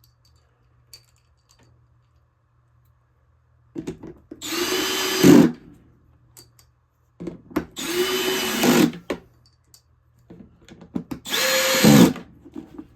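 Power drill driving bolts into a center console with a 9/32 bit: three separate runs of a second or so each, starting about four seconds in, the motor pitch rising as it spins up and then holding.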